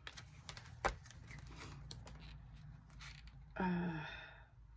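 Paper rustling and light clicks as the sheets of a spiral-bound word-sticker pad are flipped and lifted, with one sharper tap just under a second in. A short murmur from her voice comes near the end.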